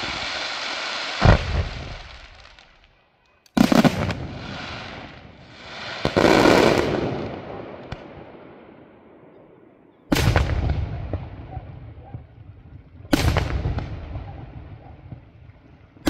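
Fireworks: a hissing shower of sparks that ends in a bang about a second in, then, after a short lull, a string of loud aerial shell bursts about three seconds apart, each fading away in a long echoing rumble.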